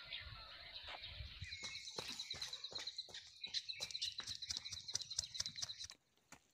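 Quick, even footfalls of a person running, starting about a second and a half in and stopping near the end, over a faint high steady chirring.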